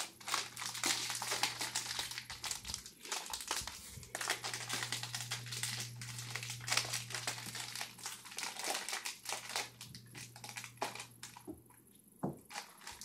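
A foil snack bag crinkling and crackling as it is handled and pulled at to get it open.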